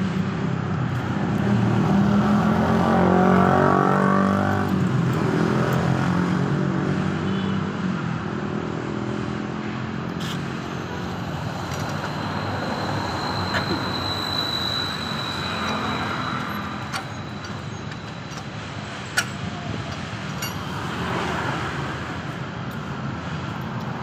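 Street traffic running steadily, with a motor vehicle passing loudly about two to five seconds in. A few sharp metallic clicks from steel lug nuts and a cross wrench being worked on a car wheel, the sharpest near the end.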